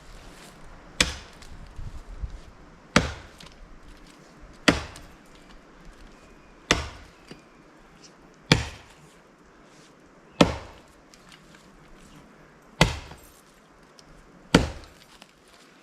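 Axe blows chopping into a standing tree trunk, eight strikes about two seconds apart: the back cut above the undercut that fells the tree.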